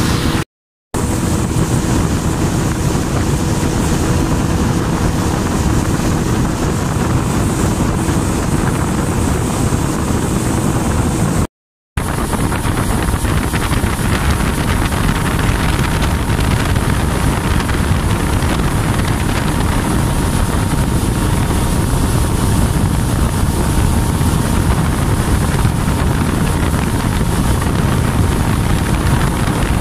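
Motorboat travelling on a river: a steady engine drone under heavy wind noise on the microphone. The sound cuts out briefly just after the start and again about twelve seconds in.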